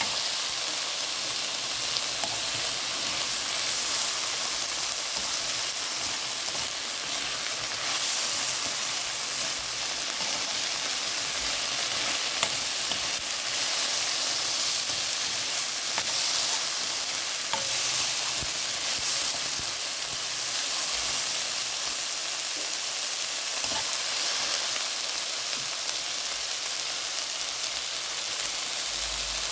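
Shiitake mushrooms and onion stir-frying in soy sauce in a nonstick pan, sizzling steadily, with occasional light scrapes as a spatula turns them.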